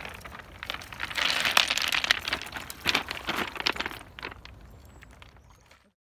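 Footsteps crunching over loose beach pebbles, with stones clicking and clattering against each other; the sound fades away near the end.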